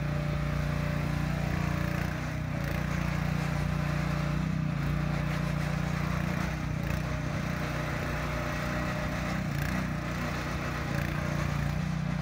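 Agrotk YM12 mini excavator's 420 cc gasoline engine running steadily while the hydraulic boom and arm are worked, dipping slightly about two seconds in.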